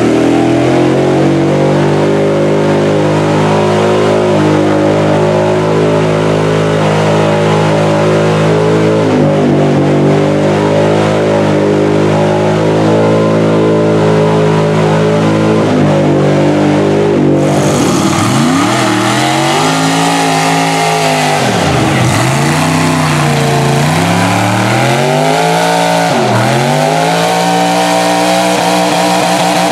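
Mud truck engine held at high revs, a steady note with a couple of brief dips, as the truck churns through deep mud. About two-thirds of the way in, a second mud truck's engine takes over, revved hard up and down several times as its big tyres spin and throw mud.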